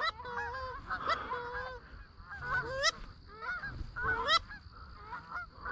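A flock of Canada geese honking in flight. Many short, overlapping calls come from several birds at once, with a couple of louder honks around three and four seconds in.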